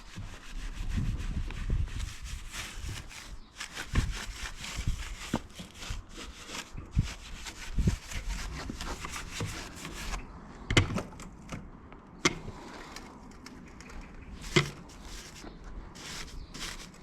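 Soft brush scrubbing a mountain bike, rapid rubbing strokes that work the dirt loose, with a few sharper knocks along the way.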